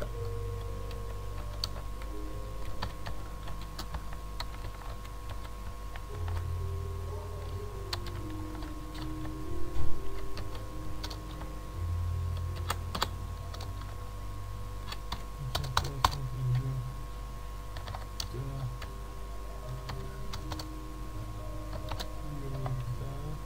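Computer keyboard typing: irregular keystrokes while code is entered, with a louder cluster of clicks about ten seconds in, over a low steady hum.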